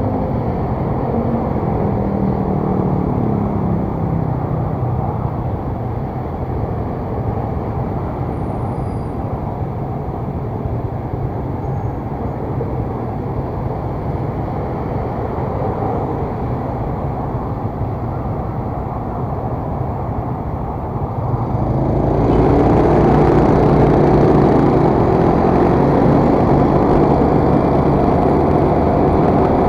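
Motor scooter engine idling while stopped at an intersection, with passing traffic. About 22 seconds in, the scooter pulls away and its engine and the wind noise rise and stay louder.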